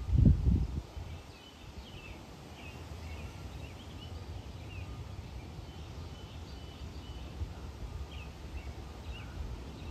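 Small birds chirping in short, repeated calls over a steady low rumble, with a brief loud buffet on the microphone right at the start.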